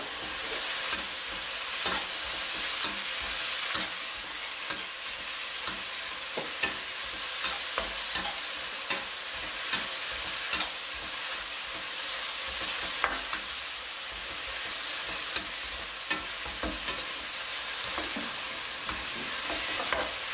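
Minced chicken and holy basil sizzling in a nonstick wok with a steady hiss, while a metal spatula stirs and turns it, scraping and knocking against the pan about once a second.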